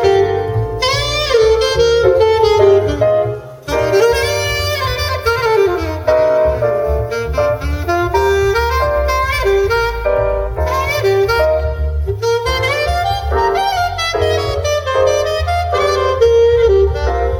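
Jazz trio recording with a saxophone lead over deep double bass, played back loudly through a Mercedes C-Class W205's Burmester surround sound system.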